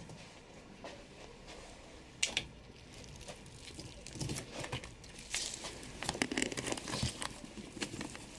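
Rustling and crinkling of a bunch of dandelion leaves being handled and put into a guinea pig cage, with scattered light clicks and taps, growing busier from about halfway.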